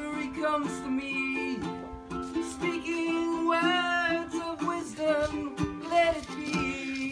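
Ukulele playing chords while a voice sings along in short phrases.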